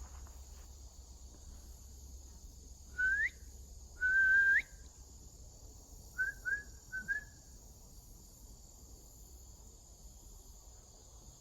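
A person whistling clear single notes: a short rising whistle, then a longer one held level that slides up at its end, then four short upslurred whistles. Steady cricket trilling runs underneath.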